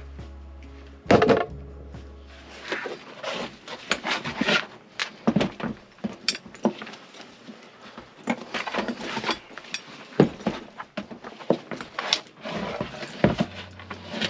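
Irregular knocks, clatter and rubbing as a sheet-metal blower housing and hand tools are handled and moved about, with one sharp loud knock about a second in. A low steady hum in the background stops about three seconds in.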